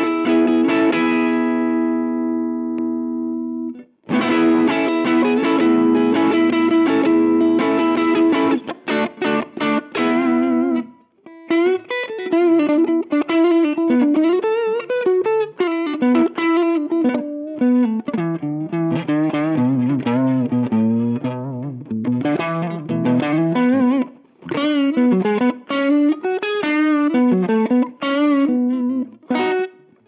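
Amplified electric guitar. A chord rings out for a few seconds, then there are rhythmic strummed chords, then single-note melodic lines with string bends and vibrato for the rest of the time.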